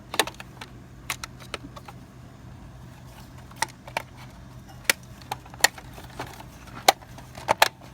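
Plastic fuse box parts being handled and fitted back together: about a dozen sharp clicks and taps at irregular intervals, over a faint steady hum.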